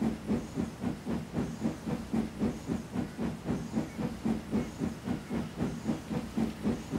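Steam locomotive chuffing steadily as it runs along the line, a regular beat of about three puffs a second.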